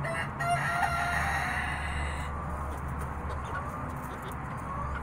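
A young Cowan/Gull gamefowl cockerel crowing once, a call of about two seconds, followed by soft clucks and chirps from the flock.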